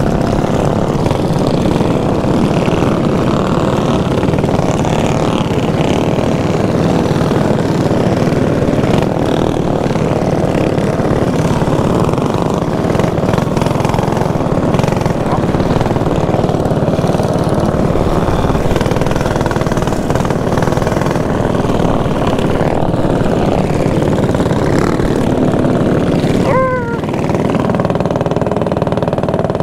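Mini bike engines running as a pack of mini bikes rides along, the rider's own bike close by, with wind noise on the helmet microphone. About 26 seconds in there is a quick falling note as the bike comes off the throttle and slows to a stop.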